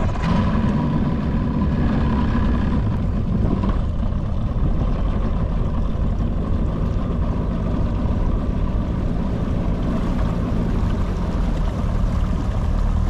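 Johnson 90 hp outboard motor running steadily as the boat moves under way.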